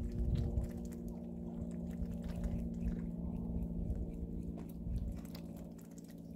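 White domestic ducks dabbling their bills in wet mud, a rapid run of small clicks and smacks, over a steady low hum.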